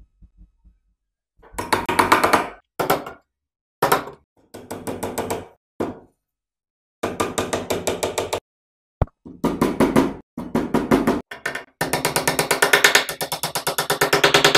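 Hammer driving dome-headed nails through a thin metal corner bracket into plywood, in quick runs of rapid taps broken by short silent gaps.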